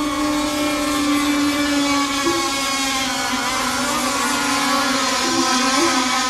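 Several radio-controlled racing boats running at speed on the course: a steady, buzzing engine drone made of several overlapping tones whose pitch wavers slightly as the boats run.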